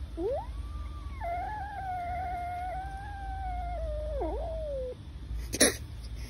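Tabby kitten giving one long, drawn-out meow that rises at the start, holds steady, wavers and falls away. A single sharp click comes about five and a half seconds in.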